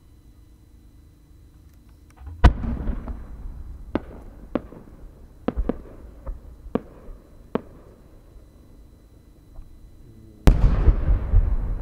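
A 10-inch Japanese aerial firework shell: a bang from the launch about two seconds in, then a string of sharp cracks from the small bursting effects on its rising tail, and near the end the loudest boom, the main shell bursting, with a long rumble after it.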